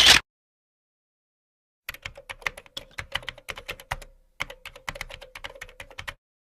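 Computer keyboard typing sound effect: two quick runs of key clicks, each about two seconds long, with a short pause between them. A brief loud burst of noise cuts off right at the start.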